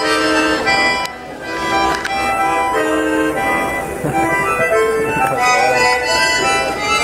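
Accordion playing a melody of held notes over chords, the notes changing about every half second, with a short drop in level just after a second in.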